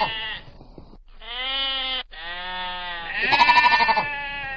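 Sheep bleating: several long, drawn-out bleats one after another, the last one the loudest and quavering.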